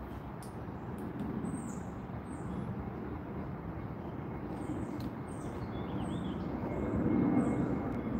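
Low rumble of distant vehicle traffic that swells about seven seconds in, with short high chirps repeating faintly above it.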